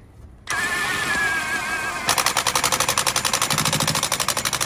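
Milwaukee 1-inch cordless impact wrench on its lowest speed setting, driving a helical pile into the soil. About half a second in the motor starts with a steady whir, and at about two seconds the impact mechanism starts hammering in a fast, even rattle.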